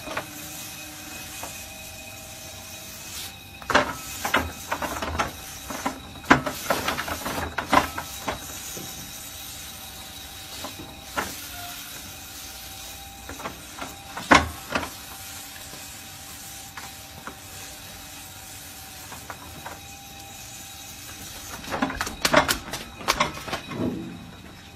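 Electric rotating cow brush running with a steady hum and hiss while a cow rubs its head against it. Clusters of sharp knocks and rustles come about four to eight seconds in, once near the middle, and again near the end.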